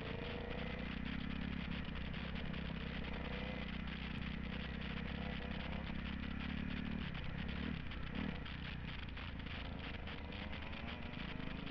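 2007 Kawasaki KX250F's single-cylinder four-stroke engine running while the bike rides a dirt trail, heard from the rider's helmet camera. It holds a steady note, with the pitch dipping and rising a few times about seven to eight and a half seconds in as the throttle changes.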